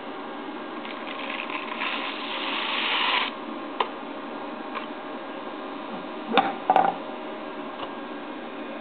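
Rice grains poured from a plastic cup into the stainless-steel feed funnel of a rice analyzer: a rising rush of falling grain that stops abruptly about three seconds in. A few light clicks follow, then the loudest sounds, two or three sharp knocks about six to seven seconds in, all over a steady background hiss and hum.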